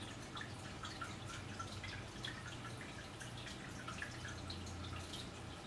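Quiet room tone: a low steady hum with many faint, irregular small ticks, like slow dripping.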